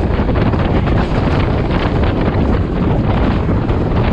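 Wind buffeting a microphone held out of a moving passenger train, over the steady rumble of the carriage running along the track.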